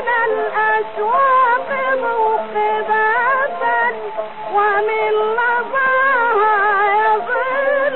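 A woman singing a long, ornamented melismatic line of an Arabic classical song, the pitch bending and quivering with vibrato.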